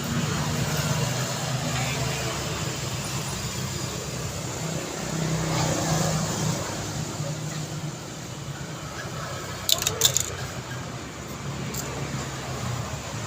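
Street traffic: vehicle engines running with a steady low hum and passing road noise, with a quick cluster of sharp clicks about ten seconds in.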